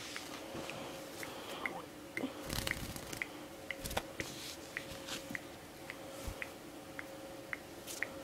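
Pet budgies crunching and nibbling at seed or the cage, a scatter of small dry clicks and crackles, with short high ticks recurring under twice a second over a faint steady hum.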